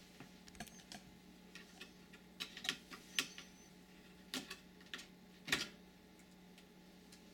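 Irregular light clicks and taps of small hard parts and tools being handled, over a faint steady hum.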